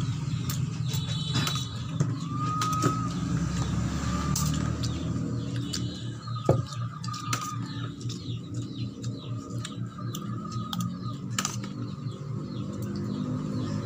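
Spoons and plates clinking now and then as rice and pancit are dished out, over a steady low hum, with a few faint short chirps.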